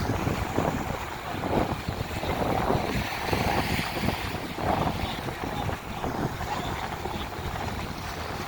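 Wind buffeting the microphone in uneven gusts, over the wash of lake waves on the shore.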